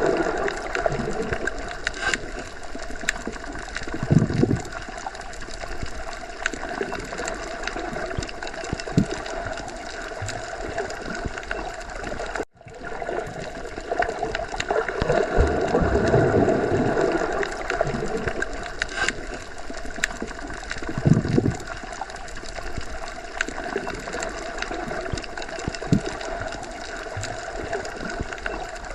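Underwater sea ambience: a steady muffled wash of water with low gurgling swells and scattered small bubbly clicks. It cuts out for a moment about twelve seconds in.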